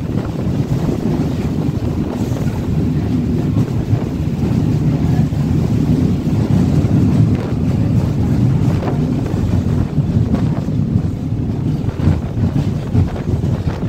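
Wind buffeting the microphone at the open doorway of a moving rail bus, over the steady running noise of the rail bus on the track.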